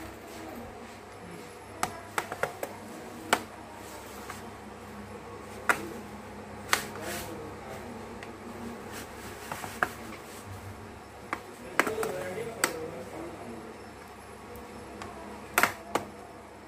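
Irregular sharp clicks and light taps of hard plastic being handled: a plastic opening pick set down on the bench and gloved hands gripping and pressing on the Asus TUF FX570UD laptop's plastic keyboard deck. Some clicks come in quick clusters of three or four.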